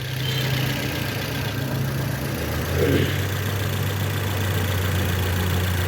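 Toyota Corolla four-cylinder petrol engine idling roughly while misfiring on two cylinders, with only two of its four firing. About two seconds in, the engine note drops lower and gets heavier, and it keeps running.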